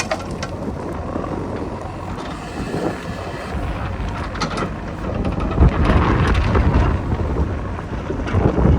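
Heavy machinery engine running with wind buffeting the microphone, the low rumble growing louder a little past halfway.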